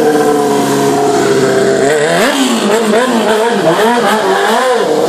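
Stunt motorcycle engine held at steady high revs, then, from about two seconds in, revved rapidly up and down over and over before settling back to a steady pitch near the end.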